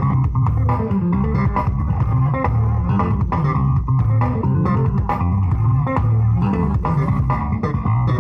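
Music with a heavy bass line and plucked guitar, played loud through a large PA sound system.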